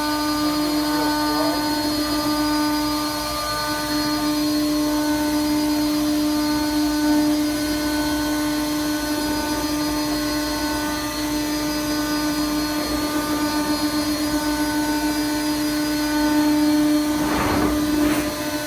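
Thermwood CNC router running, giving a steady high-pitched whine with a short burst of louder noise near the end.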